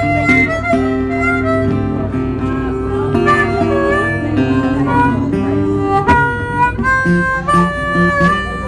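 Live harmonica solo of held notes, some bending in pitch, over a strummed acoustic guitar accompaniment in a blues song.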